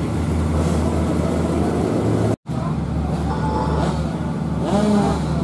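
A steady low engine hum under faint background voices. The sound cuts out completely for a moment a little under halfway through.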